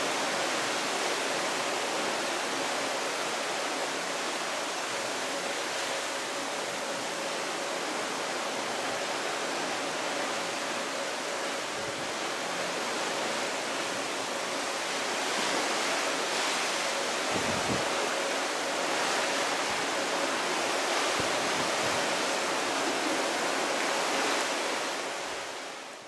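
Steady rushing of open-sea waves and wind heard from a cruise ship's deck, with a faint steady hum underneath. It fades out at the very end.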